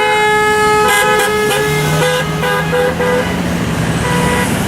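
Vehicle horns honking from freeway traffic passing under the overpass, drivers answering a 'honk to impeach' sign: one long steady honk, then several short toots, with a lower steady tone under them from about a second and a half in. The constant rush of traffic runs beneath.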